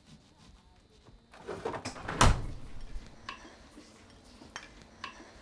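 A refrigerator door swung shut with one loud thump about two seconds in, followed by a few light clicks and knocks.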